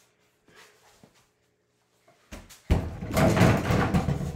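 Dunk on a mini basketball hoop hung over a door: a thump about two and a half seconds in, then the hoop and door rattling and banging for about a second and a half.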